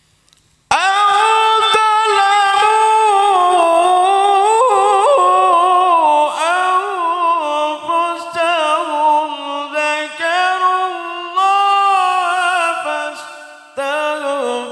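A man's voice chanting the Quran in the melodic tilawah style over a microphone. He holds long, high, ornamented notes that waver and glide in pitch, starting about a second in. There is a brief break for breath near the end.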